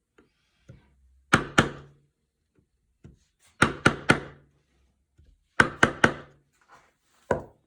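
A wood chisel being struck lightly to cut a hinge mortise, giving sharp knocks in quick groups of two and three with short pauses between.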